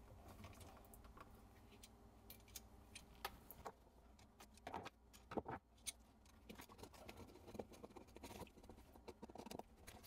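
Near silence with scattered faint clicks and taps, a couple of them louder about five seconds in: a wall outlet and its wires being handled as the white neutral wire is fastened under a terminal screw.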